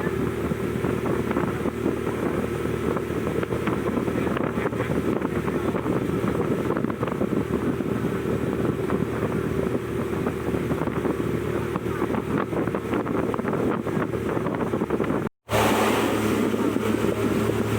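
Boat engine running steadily under way, with wind noise on the microphone. About fifteen seconds in the sound cuts out for a moment and comes back with a stronger low hum.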